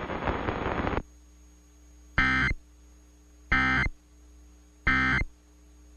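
Emergency Alert System end-of-message (EOM) data bursts: three short, identical warbling digital tone bursts about a second and a third apart, marking the end of the alert. Before them, about a second of loud hiss cuts off abruptly.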